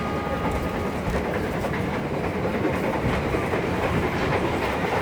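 Passenger train running along the track: a steady rumble of the carriages with the clickety-clack of wheels over rail joints.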